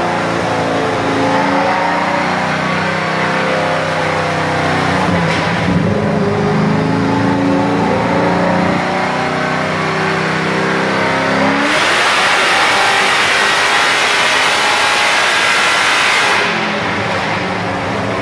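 Racing car's engine running on a chassis dynamometer, its pitch shifting as it revs. From about two-thirds of the way in, a loud rushing noise joins it for about five seconds, then drops away.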